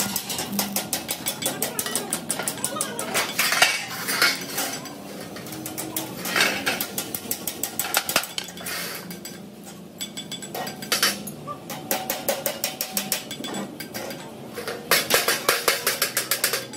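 Rapid runs of metal-on-metal tapping, several sharp strikes a second, broken by short pauses.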